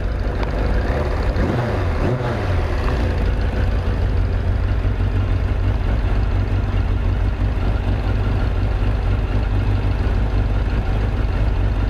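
Motorcycle engine running steadily at idle with the fuel tank off, while its carburettors are checked for balance. Its pitch wavers briefly in the first few seconds.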